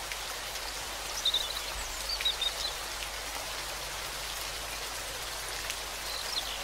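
Steady rain-like hiss, with a few short, high bird chirps about a second in, two seconds in and again near the end.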